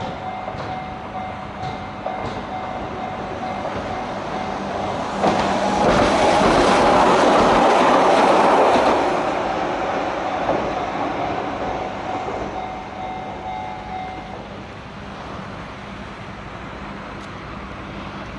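Keihan 700-series train passing over a level crossing, its wheels clattering on the rails, loudest in the middle and then fading away. A steady two-tone level-crossing warning bell rings under it and stops about 14 seconds in, as the crossing clears.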